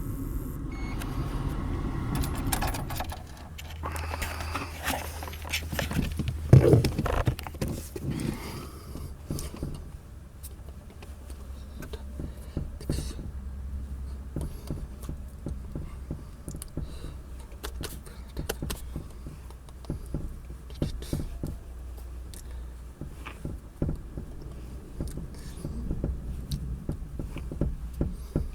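Scattered clicks, scrapes and knocks of hard objects being handled, over a steady low hum, with one loud knock about six and a half seconds in.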